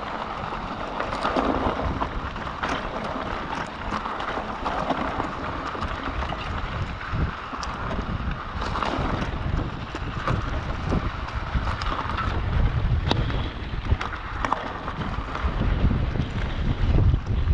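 Mountain bike riding down a rough, rocky forest trail: wind buffets the microphone in gusts, over the rumble of the tyres and frequent short knocks and rattles from the bike.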